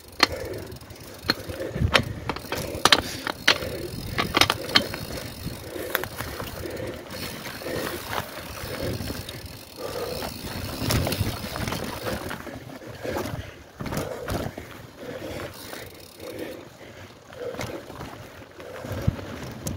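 Mountain bike being ridden over rough trail: the chain and frame rattle, with sharp knocks from bumps, most of them in the first half.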